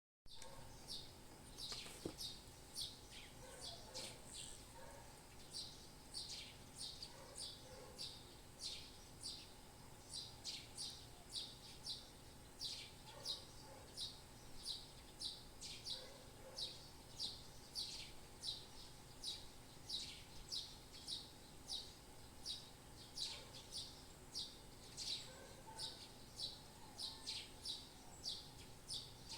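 Small birds chirping: a steady run of short, high chirps, about two a second, over a faint background hum.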